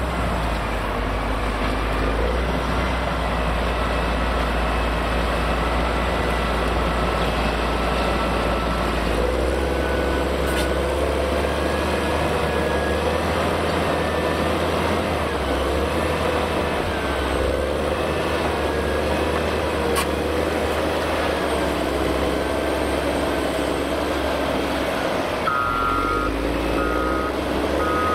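Caterpillar 160M motor grader's diesel engine running under load as it pushes gravel, a steady drone whose pitch wavers. Near the end a reversing alarm starts beeping at a steady beat.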